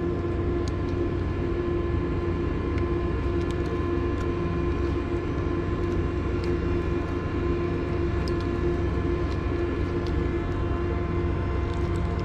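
Steady machinery drone with several fixed humming tones, unchanging in level, with a few faint ticks scattered through it.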